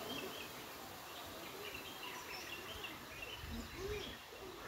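Outdoor background ambience with small birds chirping, short high calls scattered through. A low rumble about three and a half seconds in.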